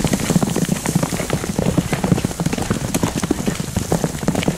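Hooves of several horses cantering past on a dirt track: a fast, irregular patter of hoofbeats with no let-up.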